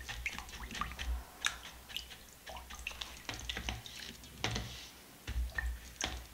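Paintbrush being rinsed in a glass bowl of warm water to wash out rabbit skin glue size: irregular small splashes and drips with short, sharp clicks.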